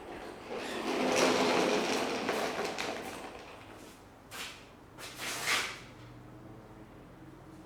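A long rough scraping slide lasting about three seconds, followed by two short scrapes about a second apart: something being slid or dragged during shop work.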